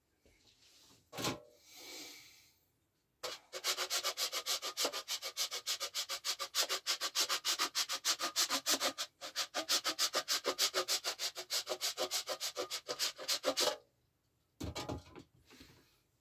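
Wax candle being grated on a stainless-steel box grater: rapid, even rasping strokes that start a few seconds in, break off briefly midway and stop near the end.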